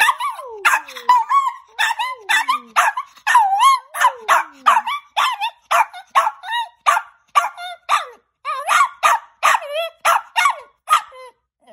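Chihuahua barking in a fast run of short, yowling barks, about two to three a second, each bending up and down in pitch. The barking stops shortly before the end.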